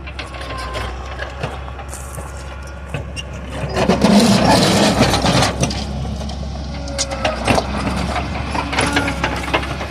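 A heavy machine's engine running steadily, with scattered knocks and clunks. There is a louder, rougher surge for a couple of seconds about four seconds in, typical of equipment breaking or lifting concrete slab.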